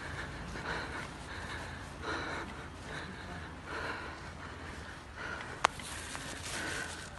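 Footsteps of a person walking on a pavement, with breathing close to the phone's microphone. One sharp click a little over five and a half seconds in.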